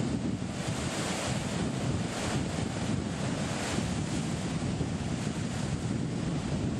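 Rough sea surf breaking over a rocky shore ledge and pouring back off the rocks, a continuous rushing roar that swells and washes. Wind buffets the microphone with a low rumble.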